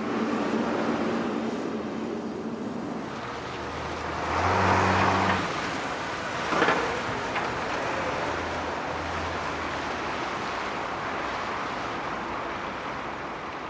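Heavy vehicle engines running steadily, with a louder swell of engine hum about four seconds in and a short sharp knock a couple of seconds later.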